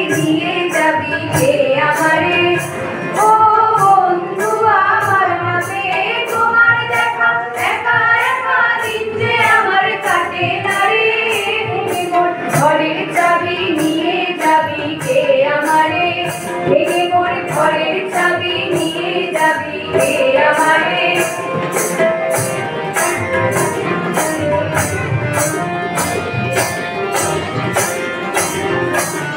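Women singing a Bengali song together through a microphone and PA, with a high percussion beat ticking steadily about two and a half times a second.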